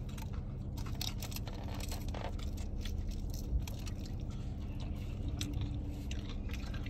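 A person chewing and crunching food close to the microphone, with irregular small crackles and clicks, over a steady low hum.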